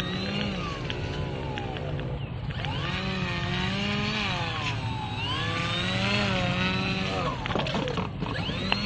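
Electric motor and air propeller of an RC airboat whining as the throttle is worked, the pitch sweeping up and down several times while the hull slides across concrete and rocks. A few sharp knocks and scrapes come near the end.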